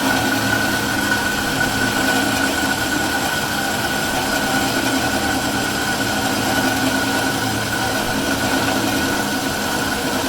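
Harbor Freight bandsaw running steadily through a dry cut in thick-walled (0.079 in) 5-inch titanium elbow with a 14-tooth-per-inch Lenox blade. The motor hum and the blade's cutting noise hold even, with a constant high whine over them.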